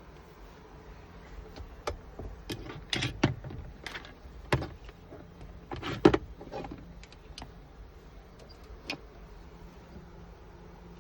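A string of irregular clicks and knocks from hands and tools working on a car door, the loudest knocks in the middle few seconds.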